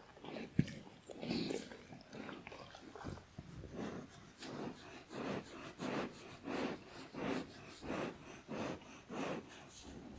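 Dog sound effect: a dog making noisy huffs through the nose, irregular at first, then settling into a steady rhythm of about one and a half huffs a second, with a sharp click just under a second in.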